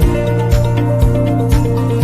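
Background music with a steady beat of about two beats a second over sustained chords.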